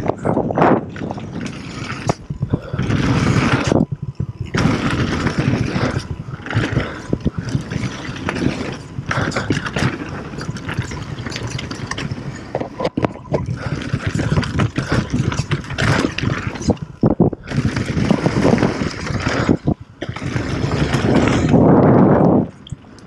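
Wind rushing over an action camera's microphone on a downhill mountain bike riding fast down a dirt trail, mixed with the tyres rolling over dirt and gravel and the rattle of the bike. The rush surges and drops away briefly several times as the speed changes.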